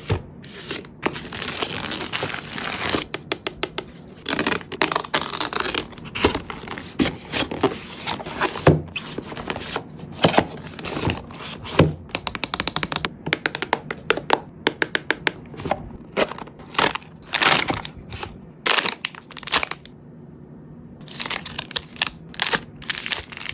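Packaging crinkling and tearing as items are unwrapped, with many quick clicks and taps, and a short lull about twenty seconds in.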